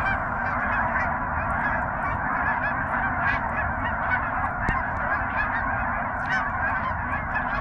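A large flock of geese honking, many calls overlapping in a continuous chorus.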